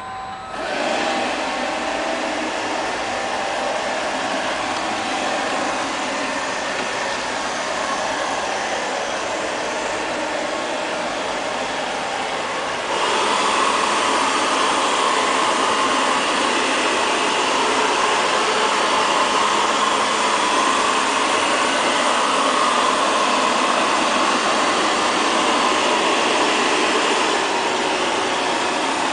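ILIFE LL-306 (X500) robot vacuum cleaner starting up and running steadily, its suction motor and brushes going as it cleans a tiled floor. It gets louder about thirteen seconds in.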